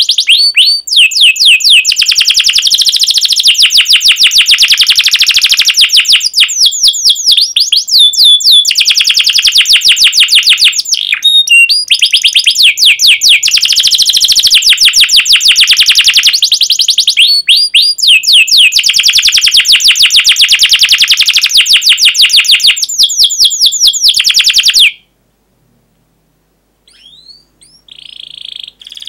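Domestic canary singing loudly in long rolling trills of rapid, fast-repeated high notes mixed with sharp 'cuit cuit' chirps. The song stops abruptly about 25 seconds in, followed by a few faint chirps near the end.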